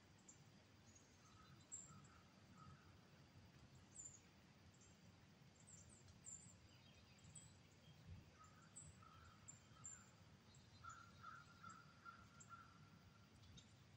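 Faint woodland quiet with distant birds calling: many short, high, thin chirps, and runs of lower calls about a second in and again from about eight seconds to near the end, over a faint low rumble.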